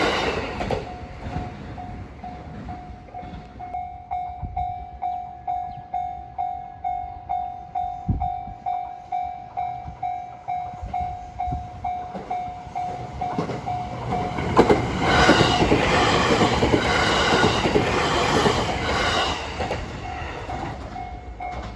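Japanese railway level-crossing alarm ringing its electronic bell about twice a second. About two-thirds of the way in, a train passes with loud, clattering wheels that drown out the bell, which is heard again near the end.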